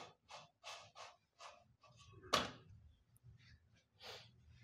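Soft, faint pats and rustles of a hand pressing a bajra roti down on a hot iron tawa, about three a second at first, with a single louder knock a little over two seconds in.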